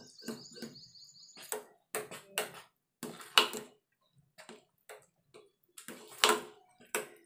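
Metal ladle knocking and scraping against a stainless steel pot while stirring thick sweet pongal: irregular clinks and clanks, two of them louder, about halfway through and near the end.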